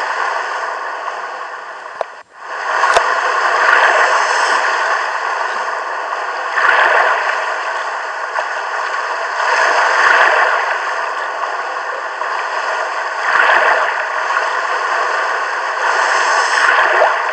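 A steady rushing noise, like running water, that swells and eases every three seconds or so. It drops out briefly a little after two seconds in, with a single click as it comes back.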